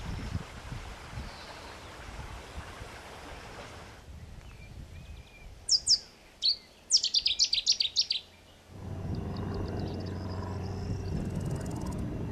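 Outdoor field sound in three parts: a steady noisy hiss, then a songbird singing a quick run of loud, high notes about six to eight seconds in, then from about nine seconds a steady low drone.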